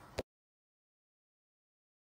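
Near silence: a faint trace of room tone ending in a short click just after the start, then total digital silence.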